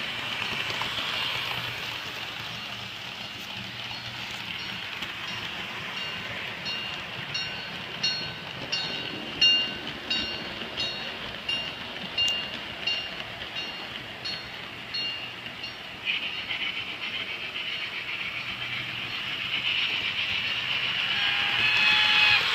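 Recorded train sound effects played by a model railway locomotive: a steady hiss with, midway, a regular beat of short ringing clicks about two a second, like wheels over rail joints, and a brief tone near the end.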